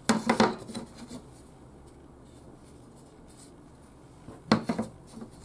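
Wooden planks knocking against each other and the wooden workbench as they are picked up and laid back down: a quick cluster of knocks at the start and another about four and a half seconds in.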